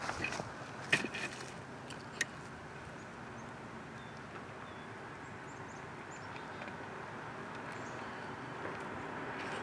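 Outdoor ambience after the siren has stopped: a few clicks and knocks in the first two seconds, then a steady noise with no siren tone, slowly growing louder.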